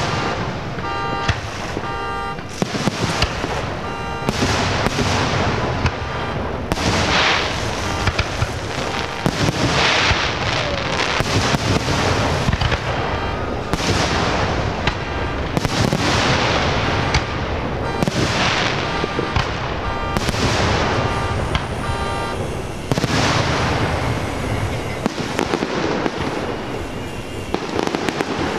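Fireworks display going off in a dense, unbroken barrage: rapid bangs and crackling, with a new burst swelling every second or two. A pitched, repeating beep sounds briefly near the start.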